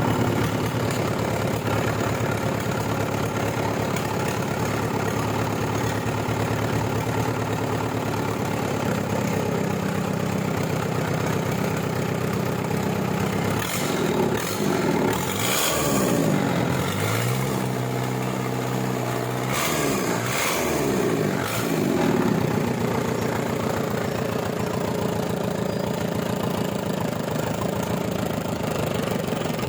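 Toyota 13B four-cylinder diesel engine idling, revved up and let back down a few times about halfway through, then settling back to a steady idle.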